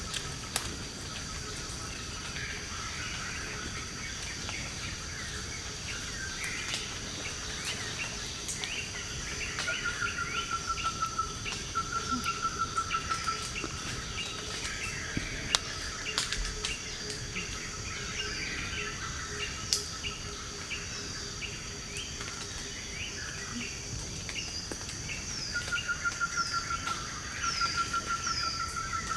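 Forest ambience of insects and birds: a steady high-pitched insect drone under scattered bird chirps. A rapid pulsing trill sounds for a few seconds about ten seconds in and again near the end, with a few sharp clicks between.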